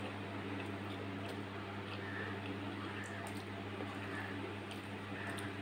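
Faint mouth clicks and soft chewing sounds, over a steady low electrical hum.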